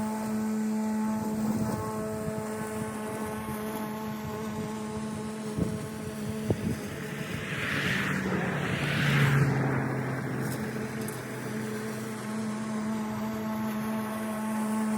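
Lawn mower running steadily with a pitched hum. About halfway through it swells louder and its pitch briefly drops.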